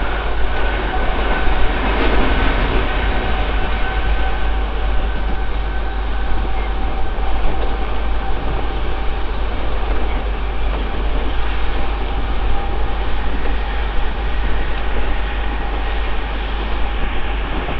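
Mumbai suburban electric local train running at speed, heard from its open doorway: a steady loud rush of wheels on rail and wind over the microphone, with a faint steady whine that fades out partway through.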